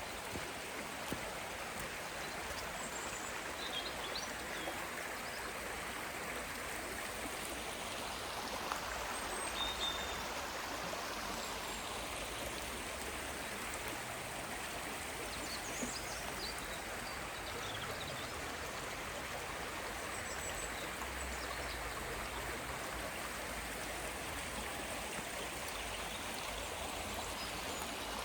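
Steady rushing of flowing water, like a stream, with a few faint high chirps here and there.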